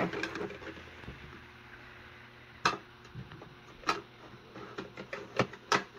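Four sharp clicks and taps of small plastic makeup containers being handled and set down, as concealers are picked through.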